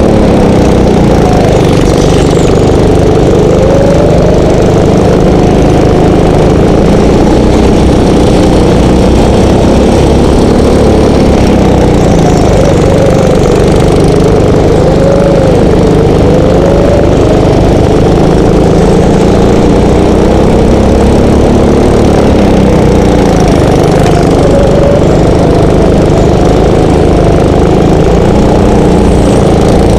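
Go-kart's small engine running loud at racing speed, its pitch rising and falling as it accelerates and slows for the corners.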